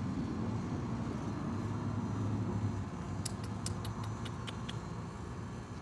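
Steady low background rumble, with a short string of light, sharp clicks a little past the middle.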